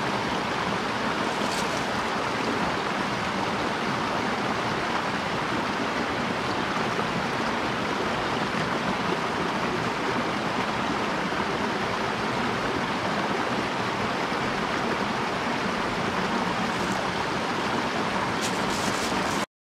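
Small mountain stream splashing over a little cascade into a pool, a steady rush of water. It cuts off suddenly just before the end.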